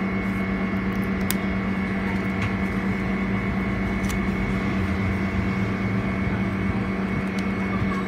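Ultra-low-temperature freezer running with a steady electric hum: a strong low tone with a fainter high whine above it, and a few faint clicks.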